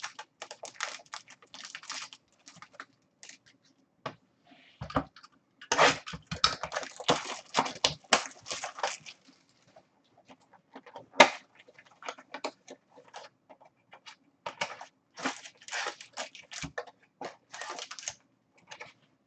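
Trading-card pack wrappers crinkling and tearing and cards rustling as packs are handled and opened: irregular crackling, busiest about a third of the way in, with a sharp snap a little past halfway.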